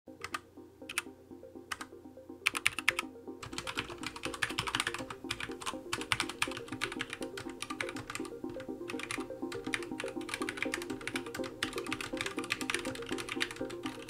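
Typing on a Keychron K4 mechanical keyboard: a few single keystrokes, a quick flurry about two and a half seconds in, then fast continuous typing from about three and a half seconds on. Background music plays throughout.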